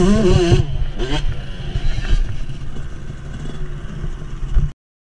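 Enduro dirt bike engine heard from the rider: a wavering high note for the first half-second, then the engine running at low speed with a low rumble and some wind hiss. The sound cuts off abruptly near the end.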